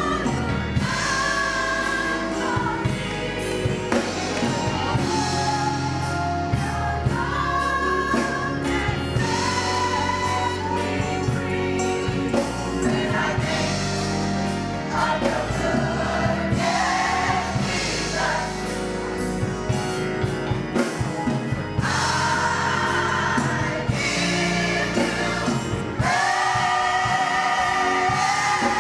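Gospel choir singing with instrumental accompaniment, in sustained phrases that swell louder near the end.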